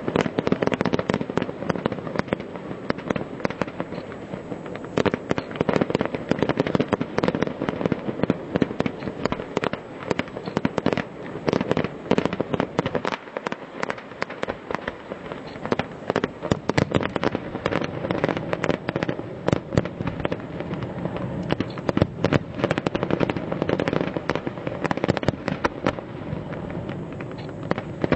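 Fireworks display going off continuously: a dense, irregular barrage of bangs and crackling, a little thinner about halfway through.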